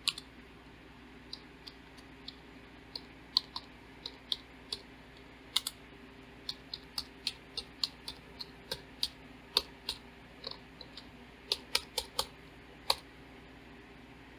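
Typing on a computer keyboard: a few dozen separate keystrokes at an uneven pace, some in quick clusters, stopping about a second before the end.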